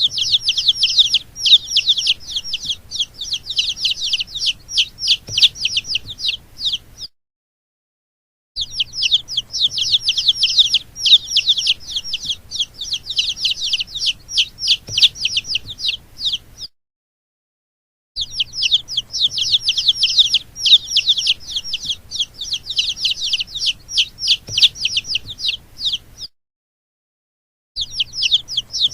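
Baby chicks peeping: a dense run of rapid, high-pitched, downward-sliding peeps, many each second. They cut off to silence twice for a second or so and start again.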